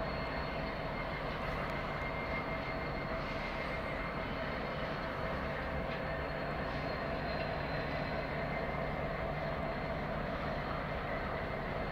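Steady machine drone, a low rumble with a constant whine over it, unchanging throughout.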